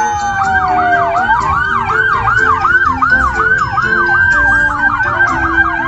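Police car sirens in yelp mode, a tone sweeping rapidly up and down about four times a second, over a second, slower siren tone that glides down in the first second.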